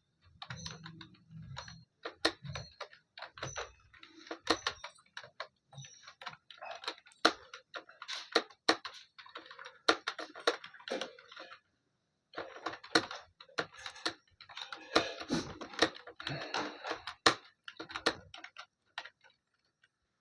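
Typing on a computer keyboard during a timed typing test: fast, uneven runs of key clicks, broken by a short pause about twelve seconds in and another near the end.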